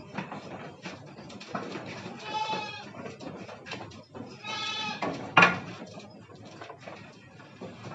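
Goat bleating twice, two drawn-out calls a couple of seconds apart, followed by a sharp loud knock, with small clatters and knocks in between.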